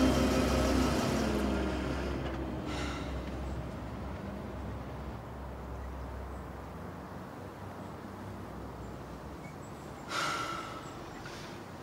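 A car drives past, its engine note falling in pitch and fading away over the first few seconds. A low steady rumble follows, with a brief sharp noise about ten seconds in.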